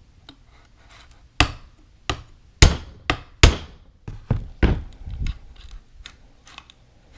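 A hammer tapping a steel retaining pin into a shotgun's receiver: about seven sharp, irregularly spaced taps in the first five seconds, then a few lighter ones, with the pin not going in because the gun is not resting on a solid surface.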